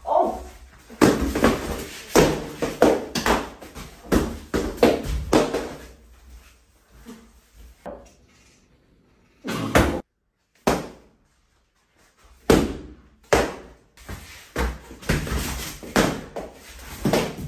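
Foam pool noodles whacking against people, a quick series of smacks, pausing for a couple of seconds around the middle and then starting again.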